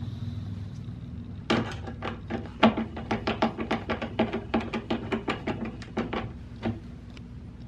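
Hand screwdriver turning a screw in a metal cabinet-door hinge: a run of sharp, irregular clicks, about three or four a second, starting about one and a half seconds in.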